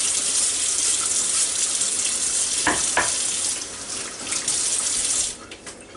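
Kitchen tap running steadily into a stainless steel sink while ears of corn are scrubbed under it, with two short knocks near the middle. The water stops about five seconds in.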